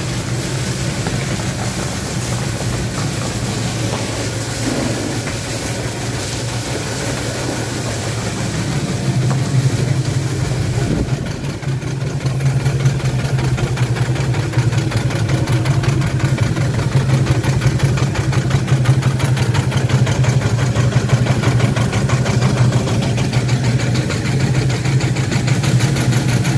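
Merryweather self-contained steam fire pump running under load, its steam engine keeping up a rapid, even beat over a steady hiss, growing louder from about halfway.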